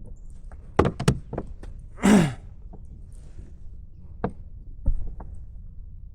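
A few short knocks and thunks, such as gear bumping the plastic hull of a kayak, three of them close together about a second in and more near the end. About two seconds in comes a loud, short breathy exhale that falls in pitch.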